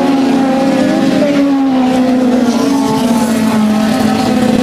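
1600 cc touring-class autocross car engine running at high revs on a dirt track, its pitch falling slowly as the car moves away.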